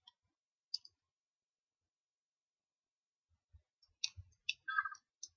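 Plastic parts of a toy 11th Doctor sonic screwdriver being lined up and fitted back together by hand. There is a faint click under a second in, then a cluster of small clicks and rubbing about four seconds in.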